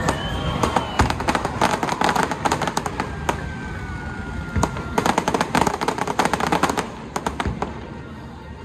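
Fireworks crackling: two dense strings of rapid sharp cracks, with a thin whistling tone gliding down through the first.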